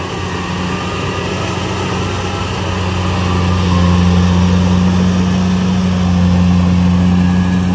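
Tracked rice combine harvester's diesel engine running steadily with a low hum that grows louder about three and a half seconds in.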